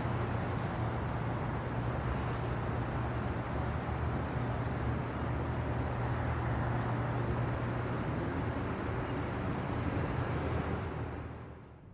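Steady city traffic noise with a low, constant hum, fading out near the end.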